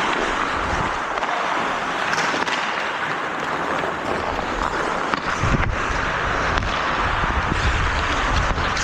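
Ice hockey play: a steady scraping hiss of skates on the ice, broken by a few sharp knocks of sticks and puck, the clearest about five and a half seconds in.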